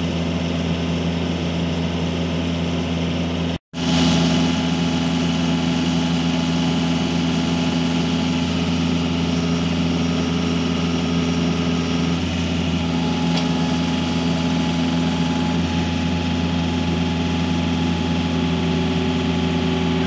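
Compact track loader's diesel engine running steadily at constant throttle, driving a hydraulic auger that is drilling a pier hole into the ground. The sound cuts out for an instant just before four seconds in.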